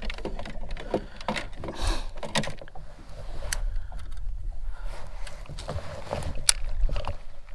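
Fishing gear being handled in a kayak: scattered knocks and clicks of a baitcasting rod and reel against the hull, over a steady low rumble.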